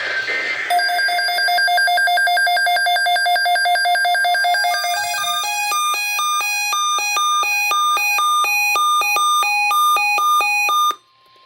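Weather radio's electronic alert alarm, signalling an incoming weather alert: a rapid train of beeps, then from about halfway a faster pattern of beeps alternating between pitches, cut off abruptly near the end.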